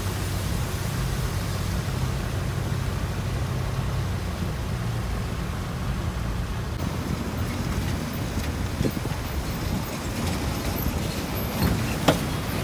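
Steady low rumble of vehicle engines in slow road traffic. About seven seconds in it changes to a different, rougher low rumble, and a single sharp knock comes near the end.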